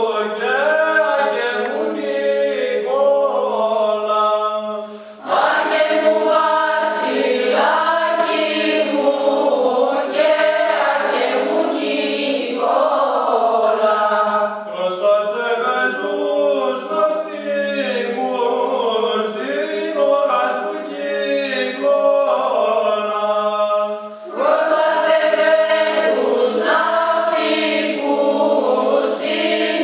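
Mixed choir of women and men singing Greek Christmas carols (kalanta) a cappella. The phrases break briefly about five seconds in and again near the end.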